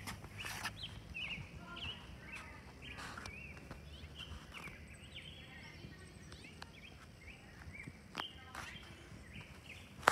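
Small birds chirping over a low steady outdoor rumble, with a few brief soft knocks.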